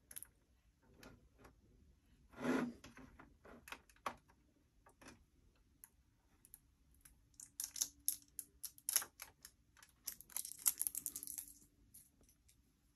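Adhesive tape being peeled off a diecast model car, faint crackling and clicking, with two longer stretches of peeling in the second half.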